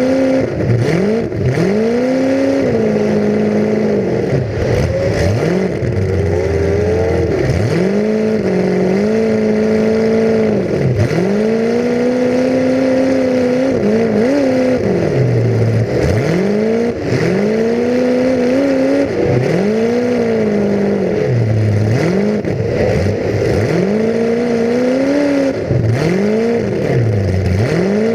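Full-size demolition derby car's engine heard from on board, revving up and falling off again and again, about every two seconds, with a few knocks mixed in.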